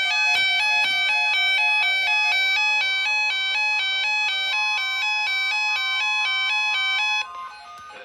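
Synthesized electronic alert tones: a loud, repeating pattern of beeping notes stepping up and down in pitch, cutting off abruptly about seven seconds in.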